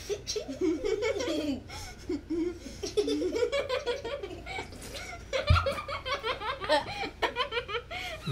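Two people laughing hard, with quick high-pitched giggling in the middle. There is one sharp thump about five and a half seconds in.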